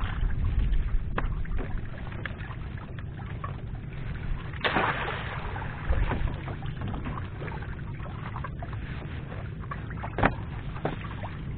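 Wind buffeting the microphone and water moving around a small fishing boat, with scattered light knocks. There is a louder burst of splashing noise about five seconds in and a shorter one near the end.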